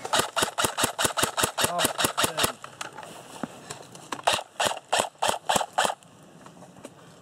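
Airsoft rifle, a tan G36-style replica, firing quick single shots: a string of about a dozen sharp snaps over two and a half seconds, a pause, then about seven more, each a little over a second apart in total.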